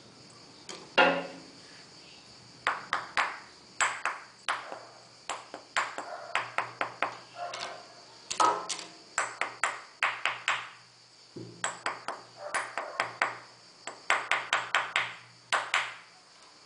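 Sharp metallic pings in quick runs of several strikes, each ringing briefly, as the aluminium viscous fan clutch of a Toyota Land Cruiser 90 is tapped and worked with a metal tool during its silicone-oil refill.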